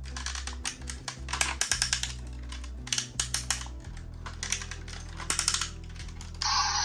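Small plastic toy cars clattering along a plastic slide track: bursts of rapid clicking and rattling, several times over a steady low hum. Near the end a loud, even hiss cuts in.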